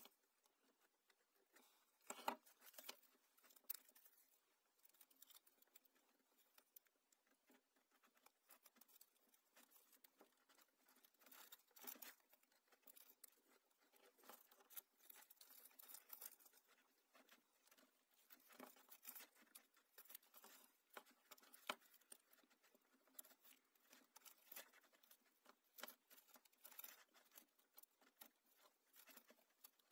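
Faint rustling, crinkling and small clicks of hands wrapping black insulating tape around a twisted electrical wire splice, with the loudest click about two seconds in.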